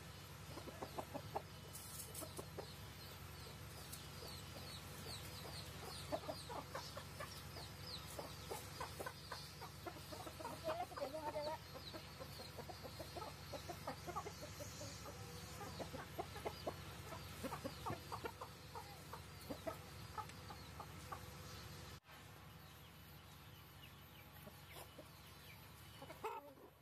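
Young roosters clucking: faint, short clucks scattered throughout.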